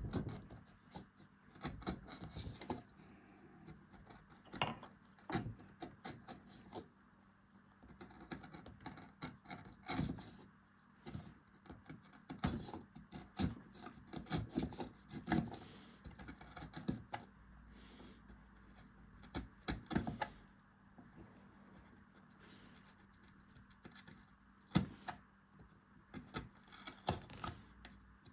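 Hand tools scraping and cutting into beech wood in short, irregular strokes, with occasional sharper clicks.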